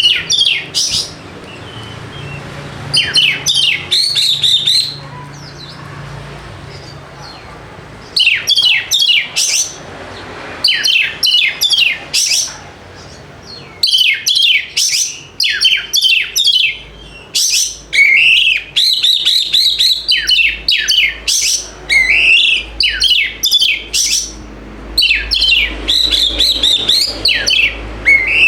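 Oriental magpie-robin (kacer) singing loudly, a bird in full song: phrases of quick, sweeping whistled notes and chattering trills, each a second or two long with short pauses between them. From about halfway through, the phrases run almost without a break.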